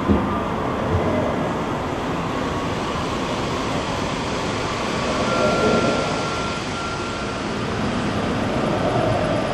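H0-scale model trains running on a layout, a steady rolling noise with a few light clicks in the first second or so.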